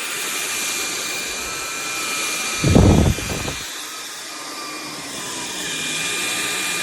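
SunSare X7A cordless stick vacuum running steadily with a thin whine, and a brief low thud about three seconds in.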